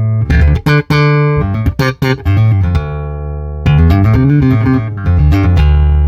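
Fender P/J electric bass played on its Precision pickup alone through a Traynor YBA300 all-tube bass amp head, heard as a mic'ed cabinet blended with the DI signal, with no drums. A quick run of short plucked notes, then a note that bends up and back down in the middle, then held low notes.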